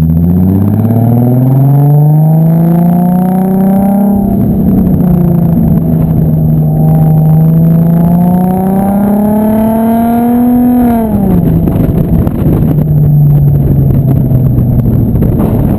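2007 Infiniti G35 sedan's 3.5-litre V6 running through an exhaust with the resonator and muffler deleted, so the exhaust note is loud and raw. Engine speed climbs for about four seconds, drops sharply, climbs again to a peak about eleven seconds in, then falls away and holds steady.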